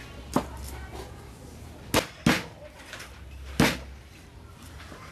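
Cleaver striking a thick round wooden chopping block while cutting garlic cloves: four sharp chops, two of them close together about two seconds in.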